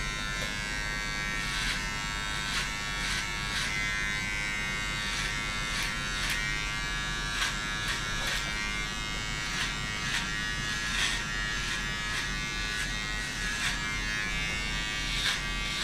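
Electric hair clippers running with a steady buzz while cutting a man's short hair, with irregular short crackles about once a second.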